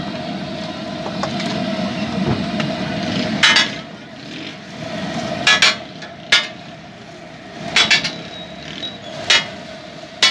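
Metal spatula striking and scraping on a flat iron griddle while an egg is cooked, about six sharp clacks in the second half, some in quick pairs, over a steady hum.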